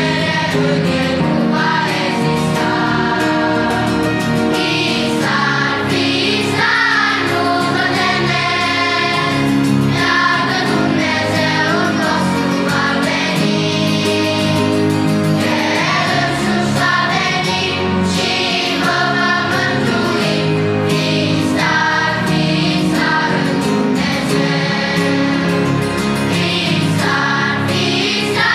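Children's choir singing a Christian song in Romanian, the many voices held together in long sustained notes.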